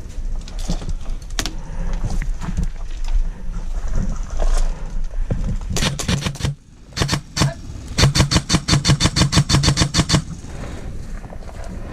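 Airsoft gun firing: a few short bursts, then a continuous full-auto burst lasting about two seconds, around eleven shots a second, with the gun's motor and gearbox heard under the shots.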